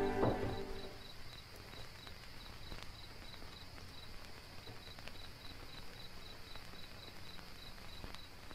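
Faint insect chirping, a high, even pulse about four times a second with a short break near the middle, with a few faint clicks. A sustained music note fades out within the first second.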